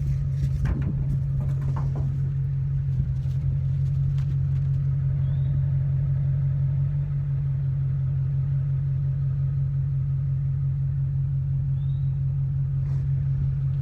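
A vehicle engine running steadily, a constant low drone.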